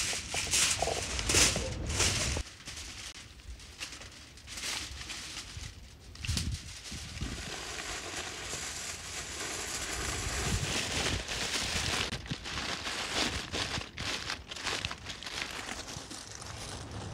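Aluminium foil crinkling as it is folded and squeezed by hand around a bundle of dry wood shavings, a dense crackle that comes in bursts. A louder rustling fills the first two seconds or so.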